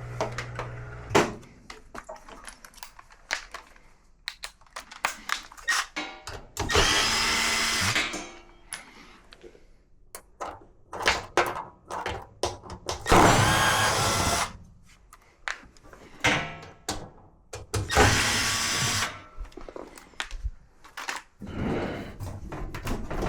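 Cordless drill-driver running in three bursts of one to two seconds, with sharp knocks and clatter of parts being handled between the bursts.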